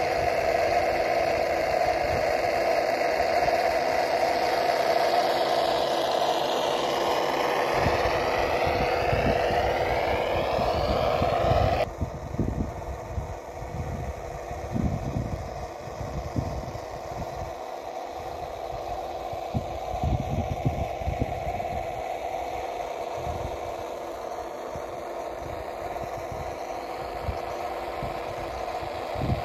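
Simulated truck engine sound from an RC scale truck's onboard sound module, playing steadily through its small speakers with the electric drive's running noise under it. It drops suddenly in level about twelve seconds in.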